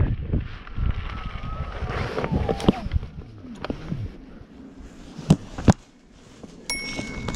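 Wind noise on the microphone dies away as the electric unicycle slows. Scattered clicks and knocks follow, with two sharp knocks about half a second apart just past the middle. A steady high-pitched electronic beep starts near the end.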